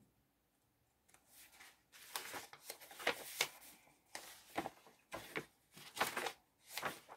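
Paper pages of a handmade junk journal being turned and handled by hand: a series of soft swishes and rustles, starting after about a second of near quiet.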